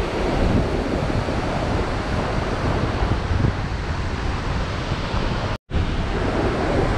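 Steady rushing of Vernal Fall heard close up in its spray, with wind buffeting the microphone. The sound cuts out completely for an instant about five and a half seconds in.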